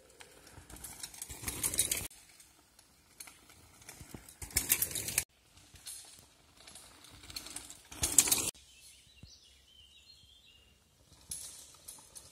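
Mountain bike tyres rolling over a dirt forest trail, a rushing sound that grows louder as each bike nears, several times over, each one cut off abruptly.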